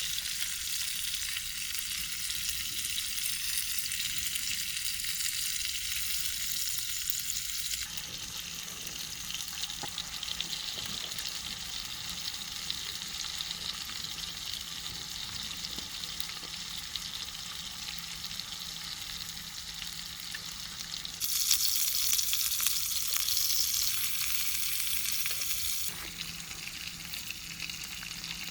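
Food frying and sizzling in a pan, a steady crackling hiss that shifts abruptly three times and is loudest for a few seconds about three-quarters of the way through.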